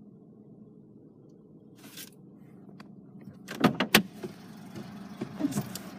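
Car door being opened: a faint steady hum, then a couple of sharp clunks about three and a half seconds in, after which the surrounding noise grows louder.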